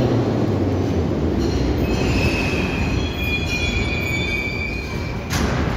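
81-717/714 'Nomernoy' metro train rolling to a stop along the platform: a steady low rumble, with a high-pitched brake squeal from about a second and a half in that lasts about three seconds. A short hiss comes near the end as the train stops.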